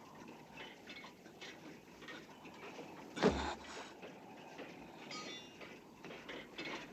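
A single short, sharp knock about three seconds in, over a faint background.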